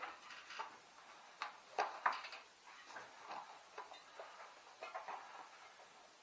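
Irregular light clicks, taps and scrapes of hands working on a bicycle wheel and tire, with the sharpest pair of clicks about two seconds in.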